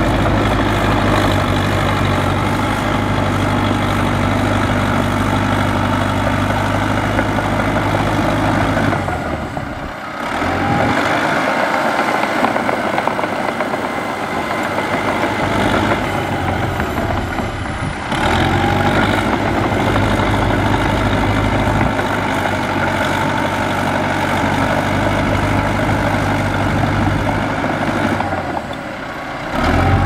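Caterpillar D3K2 crawler dozer's four-cylinder diesel engine running steadily as the dozer pushes dirt, with brief dips in level about a third of the way through, again a little past halfway, and near the end.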